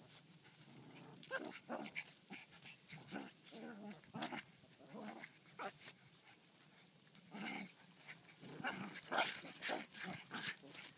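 Small dogs play-fighting, with short, irregular growls and yaps, the loudest cluster about eight to nine seconds in.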